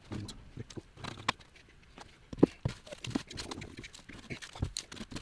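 Irregular knocks and taps of hand tools working an old basement window out of its frame, the loudest knock about two and a half seconds in.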